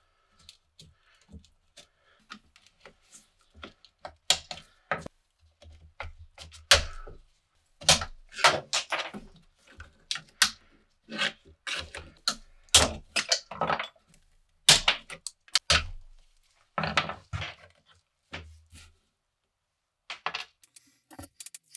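A thin metal tool prying and scraping under the old handle scales of a rusty machete: an uneven run of sharp clicks, knocks and short scrapes of metal against the tang and handle, thickest in the middle stretch.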